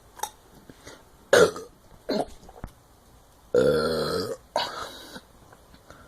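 A person burping on purpose, about four burps in a row. Two are short, then a longer one starts about three and a half seconds in and runs close to a second, followed at once by another.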